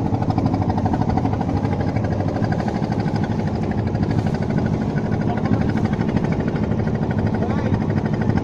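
A motor boat's engine running steadily under way, a constant rapid chugging drone.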